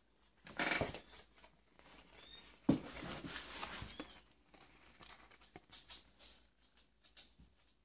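Paper rustling and crinkling as a small instruction booklet is handled and opened, with a sharper rustle about half a second in and another just under three seconds in, then lighter page sounds.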